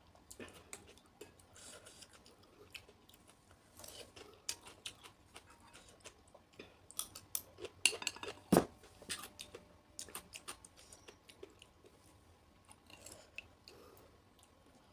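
Close-up chewing and crunching of raw vegetables and fruit in a pickled salad, with sharp clicks of a spoon against a bowl. The crunching is busiest in the middle, where a single loud knock is heard.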